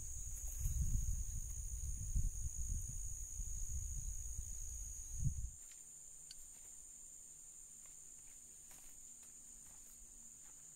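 Steady high-pitched chorus of trilling insects. A loud, irregular low rumble fills the first half and cuts off suddenly about five seconds in.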